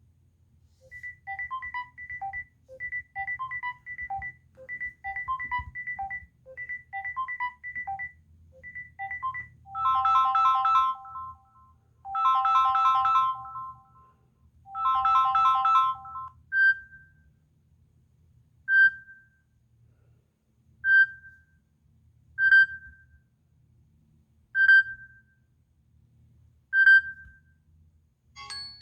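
Samsung Galaxy A40 ringtones playing from the phone's speaker. First a short melodic figure of high notes repeats about once a second, then three long chimed chords sound about two seconds apart, then a single short tone repeats about every two seconds, growing louder.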